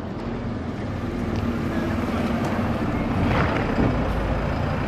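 Street traffic: a motor vehicle's engine running, growing louder over the first couple of seconds and then holding steady.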